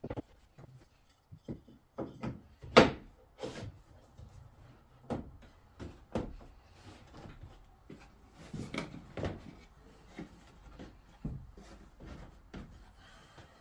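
Irregular wooden knocks, clacks and rubbing, as boards or wooden parts are handled and set against one another, with one sharp knock about three seconds in.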